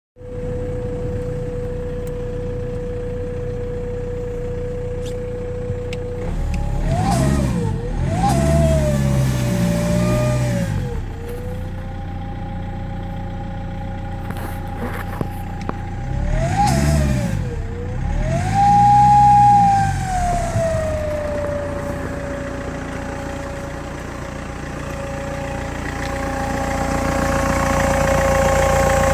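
BMW E90 engine idling with a steady whistle, revved twice; the whistle's pitch rises and falls with the revs. The owner takes the whistle and loss of power for a failed turbocharger.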